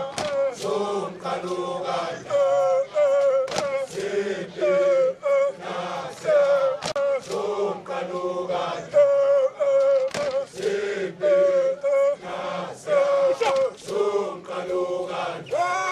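A group of men chanting a song together, with sharp short percussive hits scattered through the singing.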